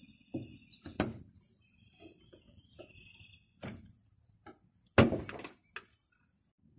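Metal clicks and knocks as the upper socket end of a Lexus ES330 gas hood strut is worked loose and pulled off the hood's ball stud. The loudest, sharpest knock comes about five seconds in.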